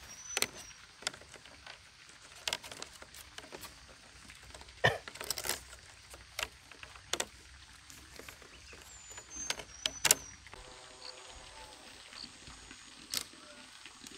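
Split bamboo strips clicking and knocking together as they are handled and woven into a cone-shaped bamboo fish trap: irregular light taps and clatters, the sharpest about five and ten seconds in. A couple of short high bird chirps come through as well.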